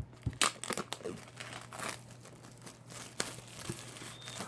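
Packaging of a Blu-ray box set being torn and crinkled open by hand: irregular crackles, rustles and sharp clicks.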